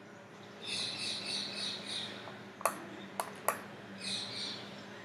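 Three sharp computer-mouse clicks in the middle, between two spells of a bird's rapid high chirping: a longer spell near the start and a short one near the end.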